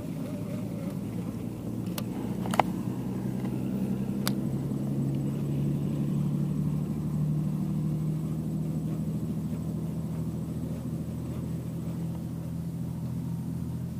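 A steady low mechanical drone, like a distant engine, runs throughout. A few sharp clicks come about two seconds in, just after, and again about four seconds in.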